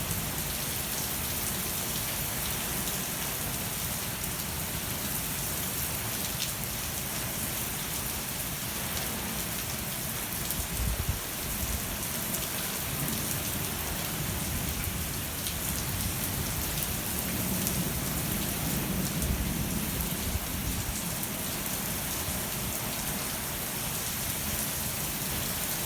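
Heavy rain pouring down steadily, with low rumbles at times.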